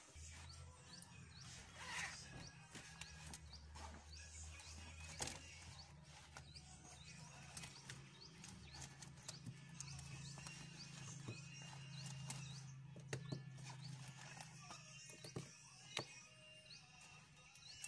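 Faint background music, with a few soft clicks as plastic pens are handled and set down on a notebook.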